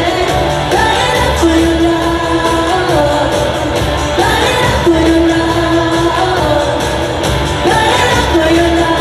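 Live pop-rock performance: a woman singing long held notes into a microphone over a band with electric guitar and a steady drum beat.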